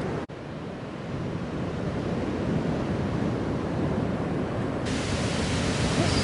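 Ocean surf breaking on a beach, a steady rush of white water. There is a momentary gap in the sound just after the start.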